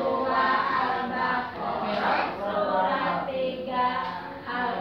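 A group of young children singing a song together, with a woman's voice singing along.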